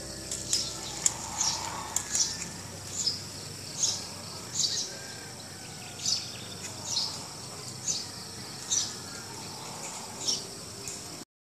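Short high-pitched animal chirps, repeated at uneven intervals of roughly a second over faint hiss, with a few light clicks in the first two seconds; the sound cuts off near the end.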